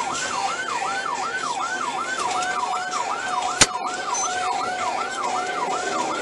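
Police patrol car siren in yelp mode, heard from inside the pursuing cruiser, wailing rapidly up and down about three times a second. A steady tone joins it a little over two seconds in, and there is a single sharp click about three and a half seconds in.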